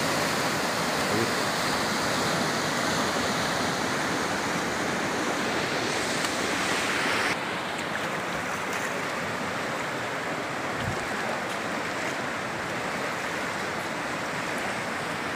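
Steady rush of fast-flowing river rapids, the white water churning over rocks. About seven seconds in it drops a little and sounds duller.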